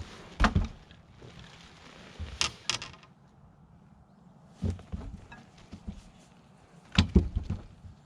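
A few scattered thumps and knocks on a fishing boat, with a pair of sharper clicks about two and a half seconds in and a cluster of knocks near the end.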